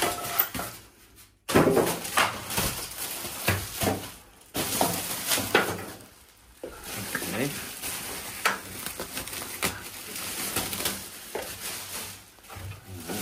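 Treadmill packaging being handled and pulled apart: irregular rustling and scraping of cardboard, with knocks and clatter, and short quiet gaps between bursts of handling.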